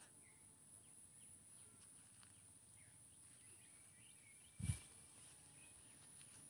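Near silence: faint steady hiss with a few faint chirps in the background, and a single thump about four and a half seconds in.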